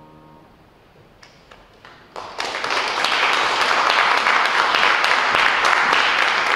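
The last piano chord dies away. A few scattered claps start about a second in, and about two seconds in the audience breaks into full, steady applause.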